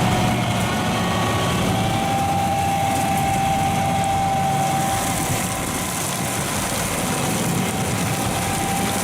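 A heavy machine's engine running steadily, with a thin, steady high whine over it.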